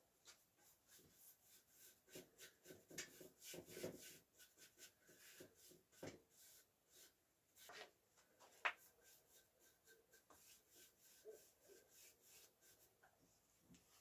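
Faint, repeated strokes of a paintbrush laying water-based wood stain onto fir boards, with one sharper knock a little past halfway.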